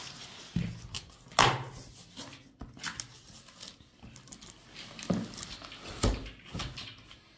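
Cardboard box and packaging being handled during an unboxing: irregular rustles, scrapes and a few dull knocks.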